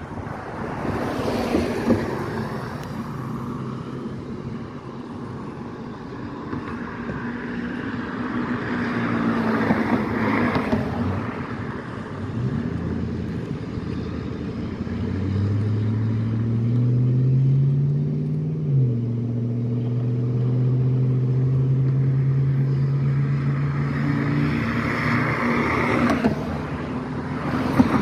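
Road traffic passing close by: three vehicles whoosh past about a second in, near ten seconds and near the end. In between, an engine's hum rises in pitch, drops sharply about halfway through as if shifting gear, then holds steady for several seconds.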